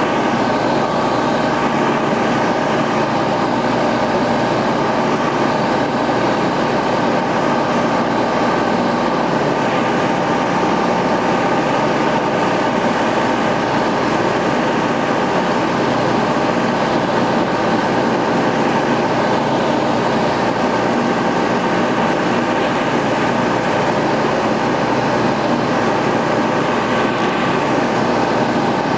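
Ultralight aircraft's engine and propeller running steadily in cruising flight, heard from inside the cockpit: an unchanging drone with several held tones.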